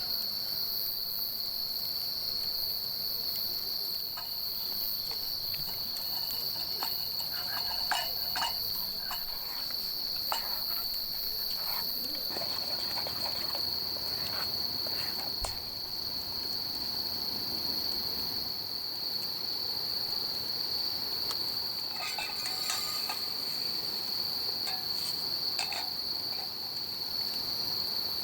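Crickets singing in a continuous high-pitched chorus, with a few short clinks and taps scattered through it.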